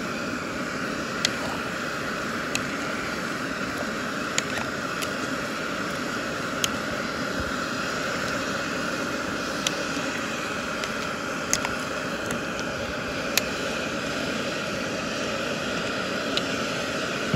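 A plastic spatula stirring chunks of eggplant and meat in a steel cooking pot, with about ten sharp clicks at irregular moments as it knocks against the pot. A steady rushing roar runs underneath.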